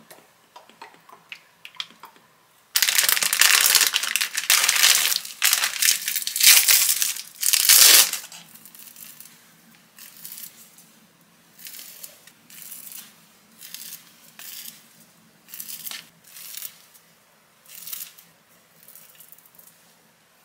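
Plastic snack wrappers crinkling and tearing as packets of jjondeugi are opened: a loud stretch of crinkling from about three to eight seconds in, then shorter, quieter crinkles about once a second.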